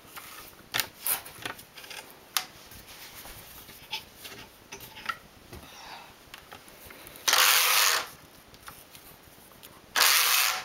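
Neva-2 hand-operated flatbed knitting machine: small clicks and rubs as latch needles are pulled forward by hand, then the carriage is pushed across the needle bed twice. Each pass is a loud rushing rattle of under a second, about three seconds apart.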